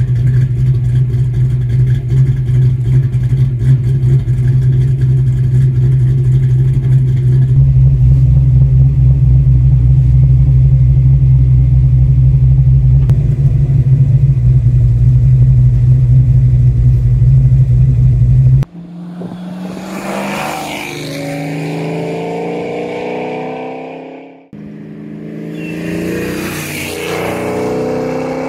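Fox Body Mustang's Flowmaster-muffled exhaust heard from inside the cabin while driving at steady speed: a loud, heavy low drone. About 19 s in it cuts to the car driving past outside twice, the exhaust note swelling and fading as it goes by.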